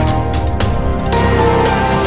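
Background music: held chords with sharp percussive hits now and then.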